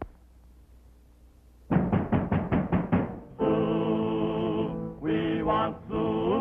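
Early-1930s cartoon soundtrack: after a short hush, a quick run of about eight percussive hits, then a held chord from a chorus of men's voices and two shorter chords that slide upward in pitch.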